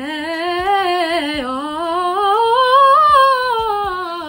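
A woman singing a vocal warm-up riff: one unbroken line of quick little pitch turns that climbs to its highest note about three seconds in and runs back down.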